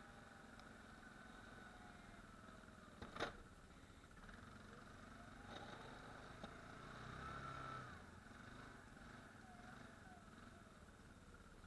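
ATV engine running faintly, its pitch rising and falling as it revs, with a sharp click a little over three seconds in and a brief swell in engine sound a few seconds later.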